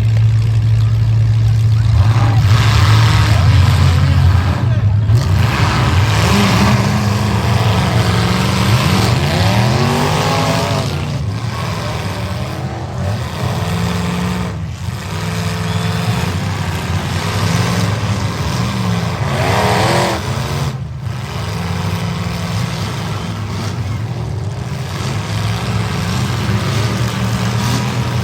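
Engines of demolition-derby pickup trucks running and revving, loud and continuous, with a deep steady drone underneath that rises and falls with the throttle.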